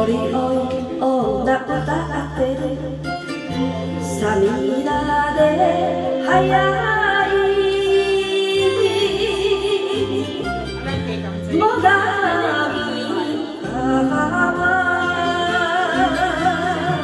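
A woman singing a Japanese song into a karaoke microphone over the backing track. She holds long notes, with a wavering vibrato on them in the second half.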